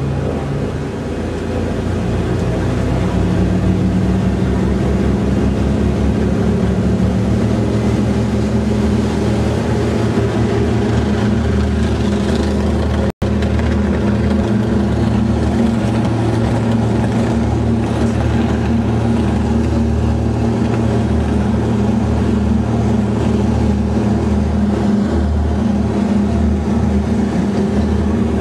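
Douglas DC-3's twin Pratt & Whitney R-1830 radial engines opening up to takeoff power, their pitch rising over the first few seconds and then running steadily at full power during the takeoff roll, heard from inside the aircraft. The sound cuts out for an instant about halfway through.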